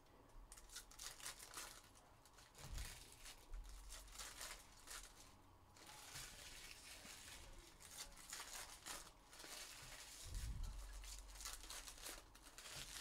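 Faint rustling, crinkling and tearing of trading card pack wrappers as packs of baseball cards are opened and the cards handled, with a couple of soft thuds.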